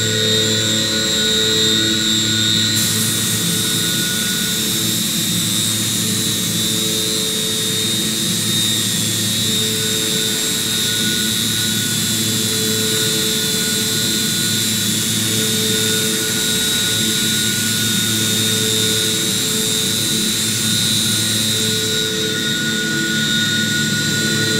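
CNC machining centre milling a pocket in hardened C45 steel (42 HRC) with an end mill on an iMachining toolpath, the spindle turning at about 6,500 rpm. A steady high whine runs throughout, and a lower cutting tone swells and fades in a regular cycle about every two to three seconds.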